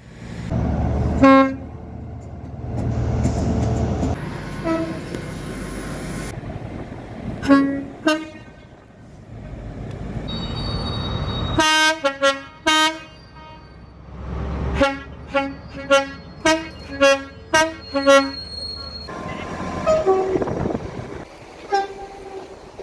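Train horns sounding in a string of short clips: single blasts early on and near the end, and in the middle a run of about a dozen quick toots, over the low rumble of passing trains. The sound changes abruptly every few seconds from one clip to the next.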